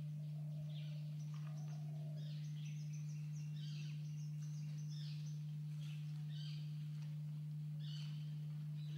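Birds chirping in quick, repeated short notes throughout, over a loud, steady low hum.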